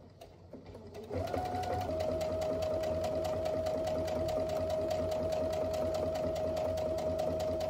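Electric sewing machine stitching a seam, starting about a second in and then running steadily at speed with a fast, even needle rhythm and a constant motor whine.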